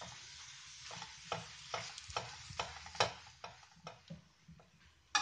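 Lachha paratha frying in ghee in a pan: a steady faint sizzle with irregular crackling pops, about two or three a second.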